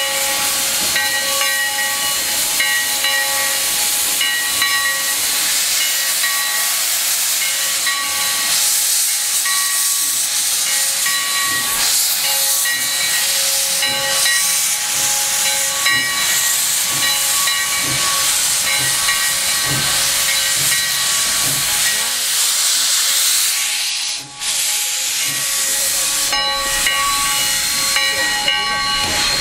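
Sierra Railway No. 3, a 4-6-0 steam locomotive, blowing steam from its open cylinder cocks in a loud, steady hiss. A few steady tones run through the hiss, and there is a brief break about 24 seconds in.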